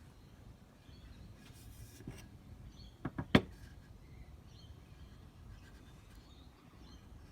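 Three quick sharp clicks or knocks about three seconds in, the last the loudest, over a faint outdoor background with scattered bird chirps.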